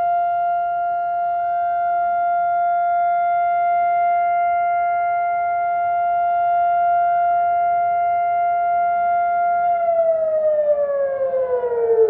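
Civil-defense air-raid siren holding one steady tone, the steady tone used for Israel's nationwide memorial siren. About ten seconds in it winds down, its pitch falling steadily as the two-minute Holocaust Remembrance Day siren ends.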